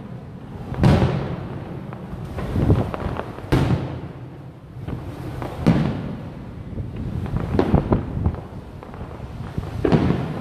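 Aerial fireworks shells bursting: five sharp booms roughly two seconds apart, each trailing off in a rolling echo, with smaller pops in between.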